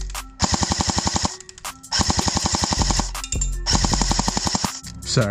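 CYMA AK-105 airsoft electric rifle firing on full auto: three rapid bursts of about a second each, with short pauses between them.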